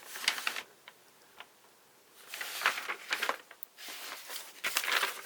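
Paper instruction sheet being handled and turned over: short bouts of rustling and crinkling with small clicks, in three spells with a quiet pause after the first.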